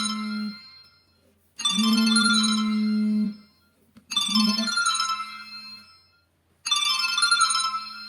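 Retro mobile phone ringtone for an incoming call, ringing in repeated bursts of about two seconds with short pauses between. Each ring is a chiming, bell-like sound over a steady low tone.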